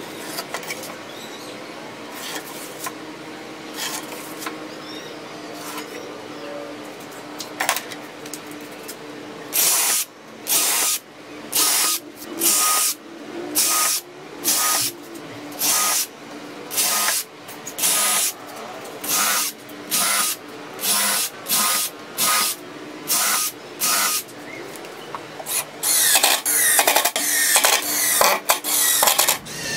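Cordless drill run in a long string of short, even bursts, about one every half second or so, drilling into a plywood panel. Near the end it gives way to a denser, rattling run of a cordless impact driver driving screws into the plywood.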